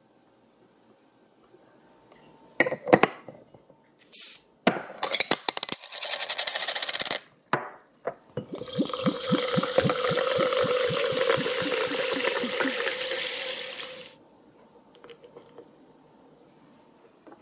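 A spoon clinks against a glass, then a sparkling-water bottle is opened with a short hiss. Carbonated water is poured from a glass bottle into a glass for about five seconds, glugging rapidly and fizzing.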